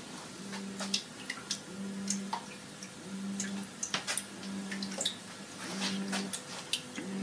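WP-40 aquarium wave pump motor humming in pulses, switching on and off about every second and a quarter as it makes waves, with water splashing and dripping over it. The hum is noisier than Tunze pumps.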